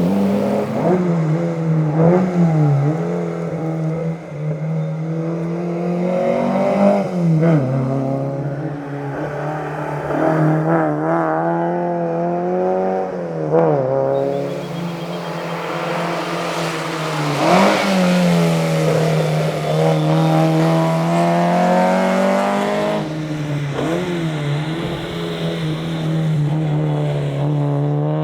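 Alfa Romeo GTV 2000's twin-cam four-cylinder engine driven hard. The revs climb and drop again and again through gear changes.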